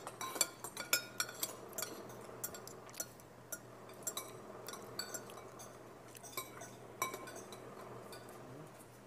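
Metal spoons and forks clinking and scraping against a cooking pot as people eat from it: a quick run of sharp, ringing clinks in the first two seconds, then scattered single clinks.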